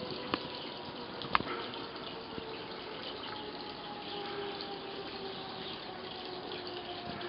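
Steady rushing background noise with faint humming tones that slowly fall in pitch. Two sharp clicks near the start, the louder about a second and a half in.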